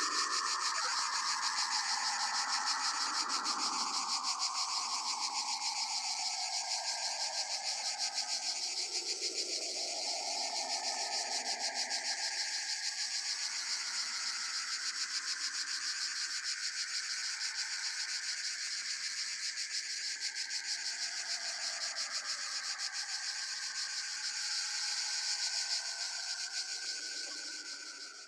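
Dense, steady cricket-like insect chirring, a fast high pulsing, with slow gliding tones rising and falling beneath it. It all fades out near the end.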